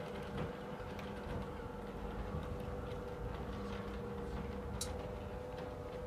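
Steady hum of a car's running engine with a low rumble, a few faint clicks, and a brief high hiss just before five seconds in.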